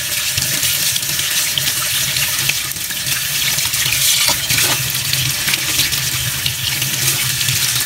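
Tap water running steadily into a stainless steel sink, splashing over a raw pig's heart as it is rinsed and squeezed by hand.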